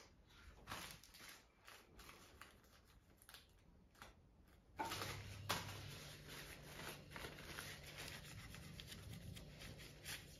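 Faint handling noises: small clicks and rubbing as parts of a partly dismantled sewing machine are touched and moved by hand. A faint steady low hum comes in about five seconds in.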